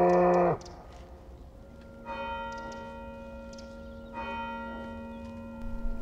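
A long, low farm-animal call ends about half a second in. Then a church bell tolls twice, about two seconds apart, each stroke ringing on.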